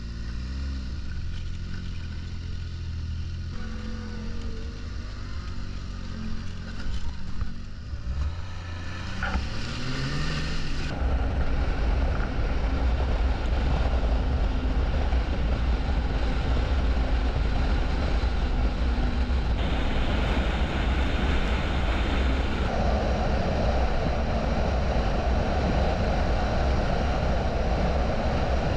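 Snowmobile engine running under way, heard from on board the sled. About ten seconds in the engine note rises as it speeds up, then it runs steadily and louder to the end.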